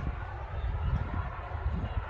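Outdoor background noise: an uneven low rumble with faint voices in the background.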